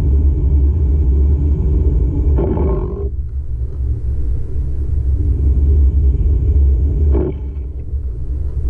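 Car interior noise while driving: a steady, heavy low rumble of engine and tyres, with brief louder swells about two and a half seconds in and again about seven seconds in.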